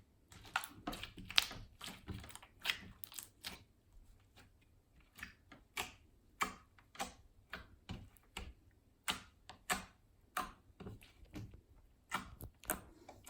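Glitter slime being squeezed and played with by hand, giving irregular sharp clicks and pops, about two or three a second.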